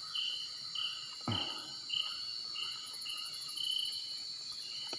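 Crickets and other night insects chirping: short, even chirps about twice a second over a steady high-pitched drone. There is one soft bump about a second in.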